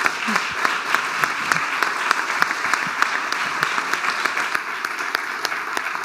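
Audience and panel applauding: a dense, steady patter of many hands clapping.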